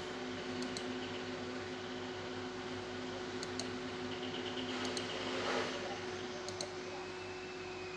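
Steady electrical hum and fan noise from a desktop computer, with a few faint clicks in pairs and a brief rustle about five and a half seconds in.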